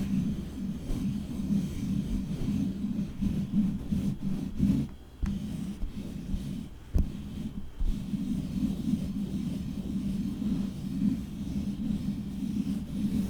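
Long fingernails scratching and rubbing directly on a microphone, a dense, continuous low scratchy rumble that drops away briefly twice, about five and seven seconds in.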